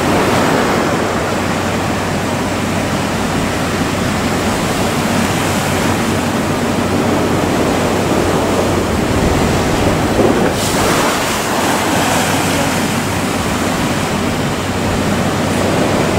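Heavy ocean swell surging and breaking in a harbour channel: a steady rush of surf with wind buffeting the microphone. A brighter, hissing wave break comes in about ten seconds in.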